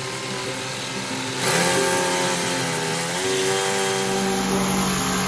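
Electric drill running, getting louder about a second and a half in, its pitch sagging and recovering as it bites under load.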